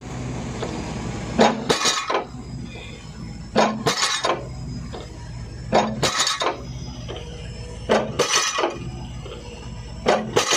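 Piling hammer striking the top of a pile, about five heavy blows roughly two seconds apart, each a short cluster of clanking impacts, over the steady hum of the piling rig's engine. The blows are being counted while the pile's set is marked on a card.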